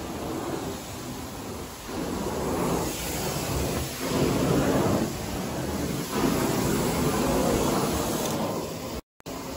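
Carpet cleaning machine running over carpet, a steady rushing noise that swells and eases every second or two with each pass, breaking off for a moment near the end.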